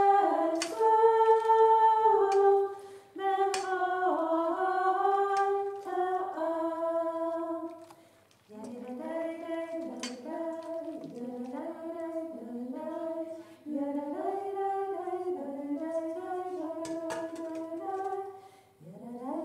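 A woman singing a melody unaccompanied, with a few faint clicks over the singing.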